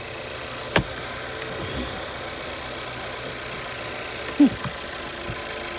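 Car engine idling steadily, heard from beside the open hood, with one sharp click about a second in and a short falling squeak a little past four seconds.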